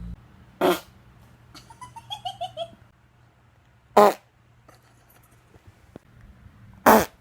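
Three short farts, about three seconds apart, with a brief run of faint, high, falling whines between the first two.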